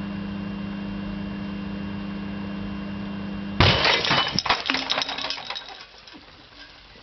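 A microwave oven hums steadily. About three and a half seconds in, a sudden loud crash of breaking glass comes in, with shards clinking as it dies away over the next few seconds.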